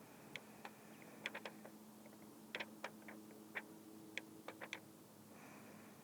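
Near silence with a faint steady low hum and about a dozen short, faint ticks at irregular intervals.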